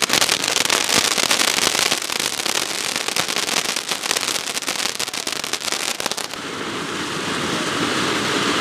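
Large flowerpot firework (ground fountain) spraying sparks with a dense, loud crackling hiss. A little over six seconds in, the crackle stops abruptly and a smoother, steadier hiss carries on.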